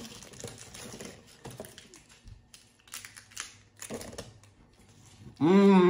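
Scattered light clicks and crinkles of snack packaging and a plastic tray being handled, then near the end a loud, drawn-out hummed "mmm" that falls in pitch.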